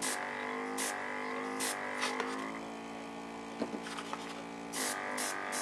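A small air compressor hums steadily while an airbrush gives short hisses of spray in quick bursts, twice about a second into it and a cluster near the end.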